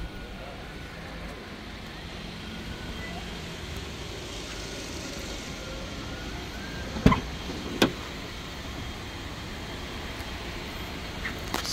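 A steady low street hum, then two sharp knocks less than a second apart past the middle: a Dacia Duster's door thudding shut, then a door latch clicking as the rear door is opened.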